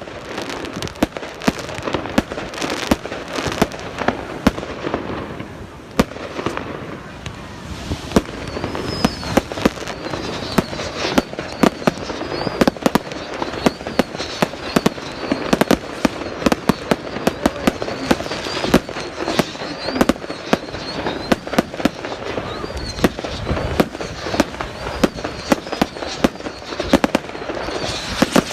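Fireworks display: a dense, continuous run of sharp bangs and crackles, easing off for a moment about five seconds in before building again.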